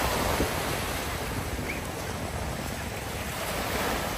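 Lake Michigan waves breaking and washing onto the beach, a steady rush.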